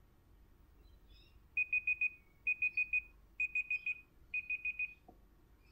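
Android phone's Clock app timer alarm going off at time's up: a high electronic beep in quick groups of four, four groups in all, starting about a second and a half in and stopping just before five seconds in.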